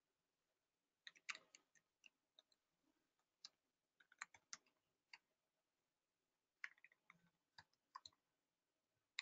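Faint typing on a computer keyboard: short runs of key clicks about a second in, around four to five seconds, and again from about six and a half to eight seconds.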